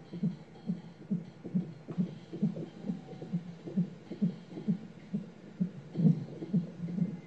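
Fetal heart monitor's Doppler speaker playing the unborn baby's heartbeat during a non-stress test: a steady, even pulse a little over two beats a second.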